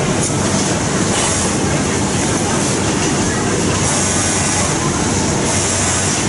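Steady mechanical din of industrial overlock and sewing machines running together on a garment factory floor.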